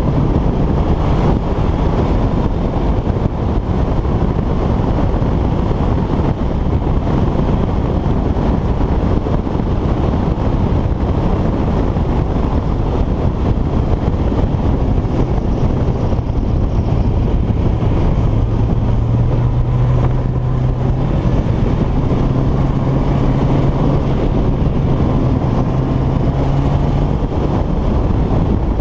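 A motor vehicle's engine running steadily under heavy wind noise on the microphone. A low steady hum comes in about halfway through.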